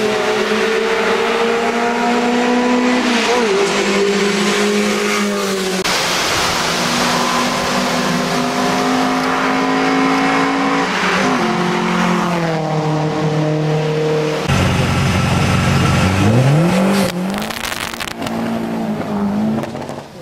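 Race car engines at high revs climbing a hillclimb course, the pitch rising and then dropping back with each gear change as one car and then a second come through a hairpin.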